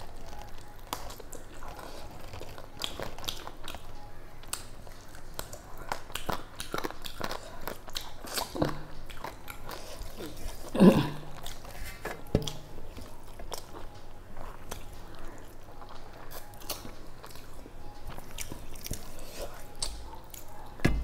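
Close-miked chewing and mouth sounds of a person eating soft rice mixed with curry by hand: a run of short wet clicks and smacks, with one louder one about halfway through.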